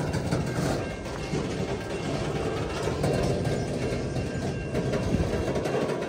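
Freight train pulling out of a siding and rolling past, a steady noise of wheels on rail.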